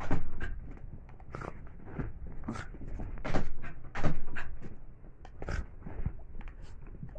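Small dog running about on a floor and blanket during play: an irregular string of clicks, knocks and rustles from its paws, loudest around three and four seconds in.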